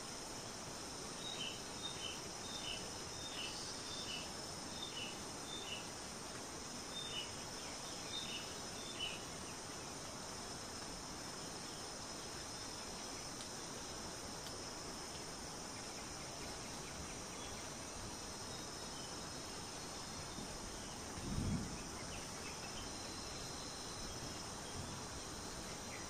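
Forest ambience: a steady high insect chorus, with a bird giving a run of short, high chirps, about two a second, over the first nine seconds. About twenty-one seconds in comes a single dull low thump, the loudest sound here.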